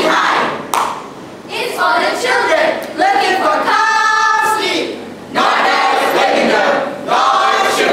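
A choral speaking ensemble of about thirty mixed, mostly female voices declaiming in unison in short phrases with brief pauses, holding one sung note together about four seconds in.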